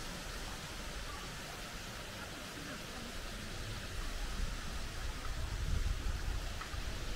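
Steady outdoor hiss of running water, with a low uneven rumble that swells about four seconds in.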